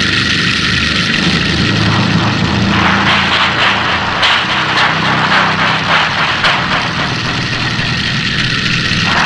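A chainsaw's engine running steadily, turning harsher and louder for a few seconds in the middle.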